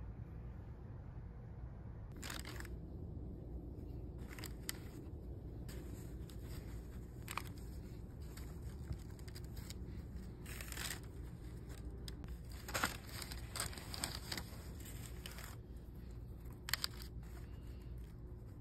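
Intermittent rustling and crinkling of packaging as a gift box, its ribbon and a cotton dust bag are handled and opened, with a few light clicks.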